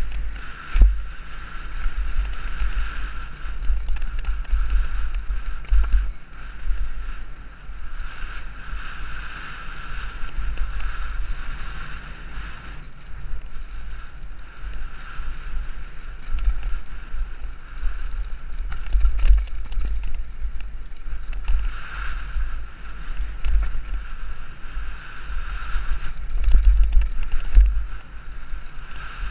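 Mountain bike descending a dirt forest trail at speed, heard from a helmet-mounted camera. Heavy wind rumble on the microphone and a steady buzz of riding noise are broken by frequent sharp rattles and knocks as the bike hits bumps.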